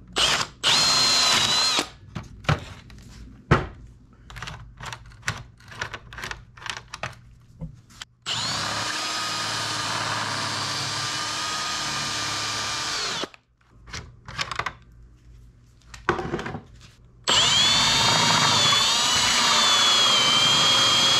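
Cordless drill running in three bursts: a short one at the start, one of about five seconds in the middle, and a louder one near the end whose whine wavers under load. It is setting nutserts (rivet nuts) into a plastic dash panel. Between the runs come small clicks and knocks of handling.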